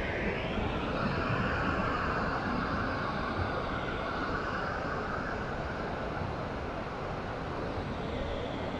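Ocean surf breaking and washing up a sandy beach, a steady rushing noise that swells in the first few seconds and then eases. A low, uneven rumble of wind on the microphone runs underneath.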